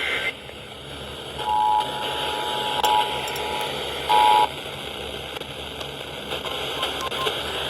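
Radio static hiss broken by three short bursts of the two-tone Emergency Alert System attention signal, the middle one fainter and longer and the last one the loudest.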